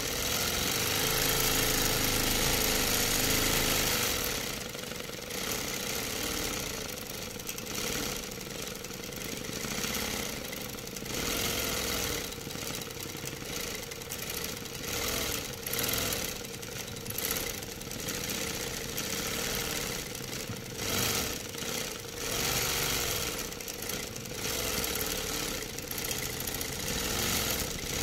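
Longarm quilting machine running, its needle stitching through the quilt layers with a steady mechanical hum. It is louder for the first few seconds, then rises and falls every second or two.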